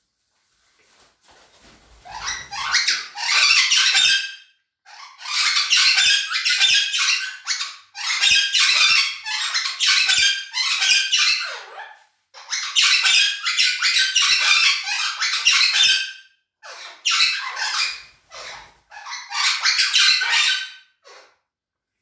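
Cuban Amazon parrots calling loudly in about six bouts of rapid, run-together calls, each lasting a few seconds with short pauses between.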